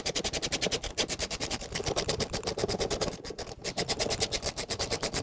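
Fast, even mechanical clicking, about a dozen clicks a second, with a short pause a little past halfway, from the tool turning out bolts with a 6 mm Allen (hex) drive.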